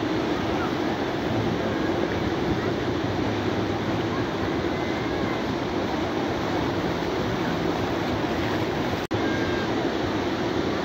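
Beach ambience: a steady rush of surf with the faint chatter of a crowd of beachgoers. The sound drops out for an instant about nine seconds in.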